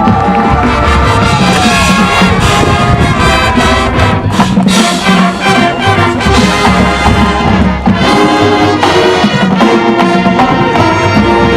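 High school marching band playing loudly with brass to the fore, sustained full chords, and a sliding tone near the end.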